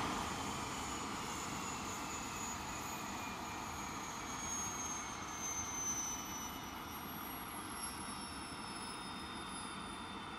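English Electric Lightning's twin Rolls-Royce Avon turbojets spooling down. A high turbine whine falls steadily in pitch while the jet noise fades.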